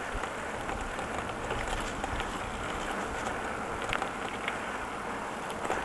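Steady rushing road and wind noise while riding along a street, with a few faint clicks.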